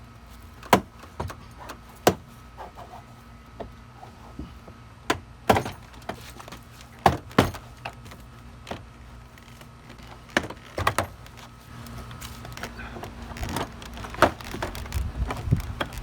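Plastic retaining clips of a 2007 Cadillac Escalade's door trim panel snapping loose as the panel is pried off with a cloth-wrapped pry bar: a dozen or so sharp, separate snaps and clicks. Toward the end the loosened panel rustles and knocks as it is worked free.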